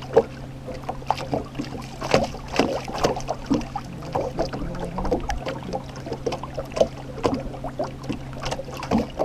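Small outboard motor running steadily at trolling speed, a low even hum, with irregular light taps and slaps of water against the aluminium boat hull.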